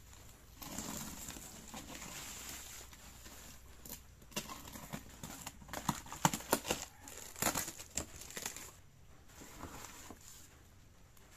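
Bubble-wrap mailer and packing plastic crinkling as it is handled and opened. This is followed by a run of sharp crackles and snaps, loudest midway, as a utility knife slits the taped cardboard box and its flaps are pulled open.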